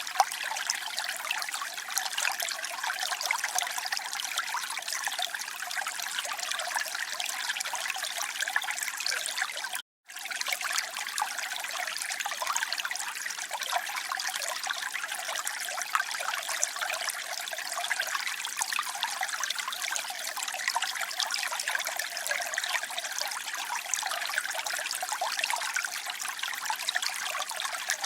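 Running water trickling in a steady, even hiss, with a brief complete drop-out about ten seconds in.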